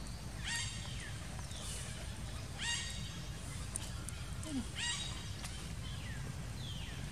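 An animal calling over and over, about every two seconds: a high call with a slight rise at the start, each followed by a fainter falling note, over a steady low background noise.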